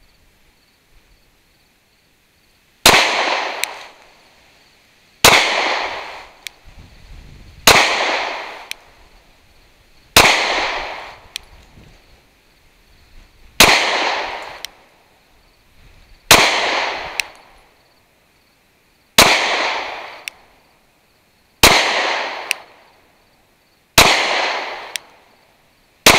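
A Glock 43X 9mm pistol firing nine deliberate, evenly paced shots, about one every two and a half seconds, starting about three seconds in. Each shot is sharp and loud and has a short echoing tail.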